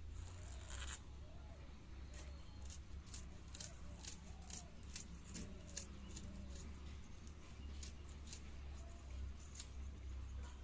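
Knives cutting food by hand: irregular sharp, crisp clicks and snicks, about one or two a second, as blades slice through fresh bottle gourd and work at mussel shells. Faint short chirps sound in the background.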